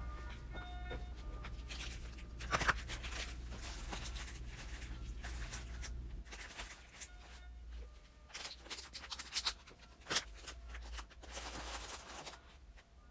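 Paper and plastic packaging crinkling and rustling in irregular bursts as items are handled, with a few sharper crackles, the loudest about two and a half seconds in and around nine to ten seconds in. A low steady hum runs under the first half.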